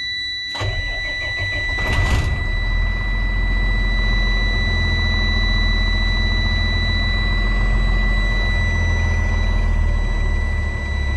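Diesel engine of a 2000 Freightliner dump truck starting about half a second in and then idling steadily, building air pressure in a low air system. A steady high-pitched tone sounds along with it.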